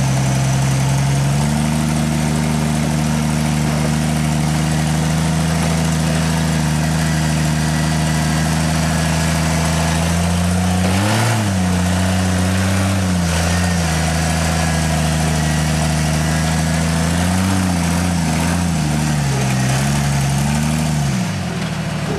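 Rock crawler's engine running at low revs, with a short throttle blip about halfway through and a few more in quick succession near the end before it settles back down.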